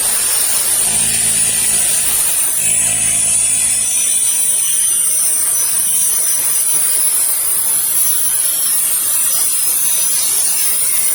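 Small portable petrol generator running hard under load, powering an electric drill plugged into it, with a steady high whine over the running noise.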